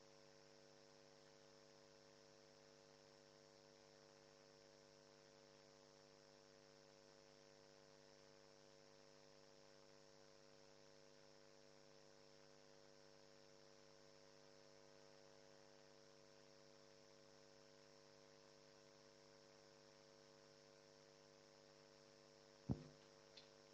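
Near silence filled by a steady electrical mains hum in the audio line. A single short knock sounds about a second before the end.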